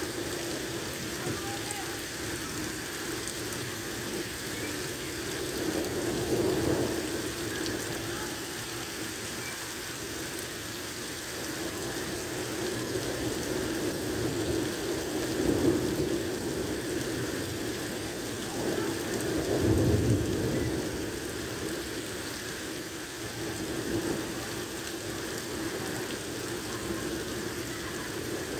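Heavy rain pouring steadily onto a flooded road and parking lot, with a few louder swells, the strongest with a low rumble about twenty seconds in.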